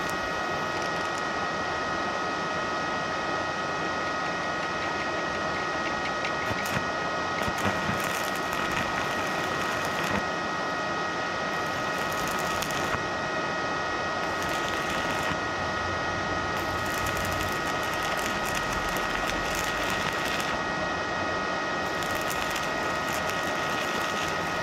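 Stick (MMA) welding arc from a Minleaf ZX7-250 IGBT DC inverter welder set at 140 amps, crackling and sizzling steadily as the electrode burns on rusty scrap steel. A few steady high whining tones run through it, with an occasional sharper crackle.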